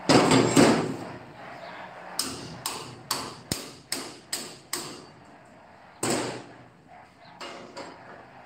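Hammer blows on steel: a quick run of seven sharp ringing strikes, about three a second. Before them come two heavy metal clanks, and another comes about six seconds in.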